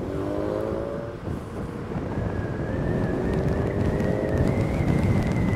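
Wind buffeting the microphone of a Segway GT2 electric scooter as it speeds up. A thin motor whine comes in about two seconds in and rises slightly in pitch.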